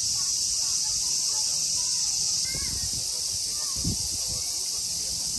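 Steady, high-pitched chorus of cicadas in summer woodland, with faint distant voices and low rumbles of wind on the microphone.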